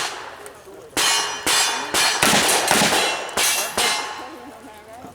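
Single-action revolvers fired in quick succession at steel targets: about eight shots roughly half a second apart, each followed by the ring of the struck steel, which lingers after the last shot.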